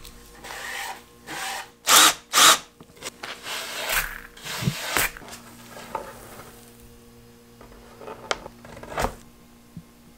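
Hands working hinged plywood panels: short rubbing and scraping sounds on the wood, the two loudest close together about two seconds in, then a few sharp knocks as the hinged lids are moved.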